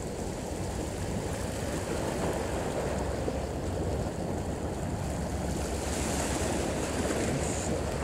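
Steady rush of sea and wind at the shore, with wind rumbling on the microphone.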